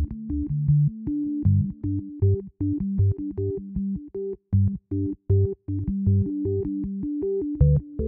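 Background music: synthesizer keyboard chords over a steady pulsing low beat.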